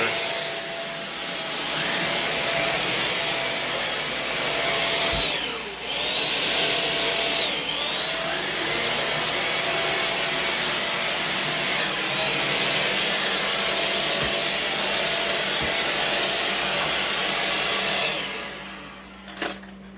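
Shark Rocket stick vacuum with its floor power head, running with a steady high whine as it cleans the floor. Its pitch dips briefly a few times, and near the end it is switched off and winds down.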